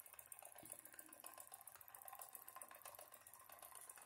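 Faint, rapid ticking with a thin hiss from a small Wilesco D3 live steam engine running under steam, its single oscillating brass cylinder and flywheel turning over steadily.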